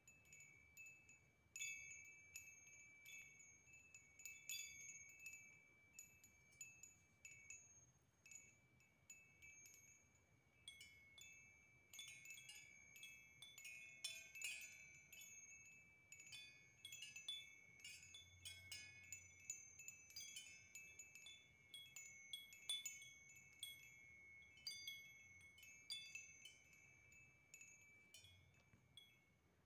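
Metal tube wind chime with small metal bells, stirred by hand: tubes and bells strike each other in irregular clusters and ring on in high, bright tones. The striking is faint and sparse at first and gets busier about a third of the way in.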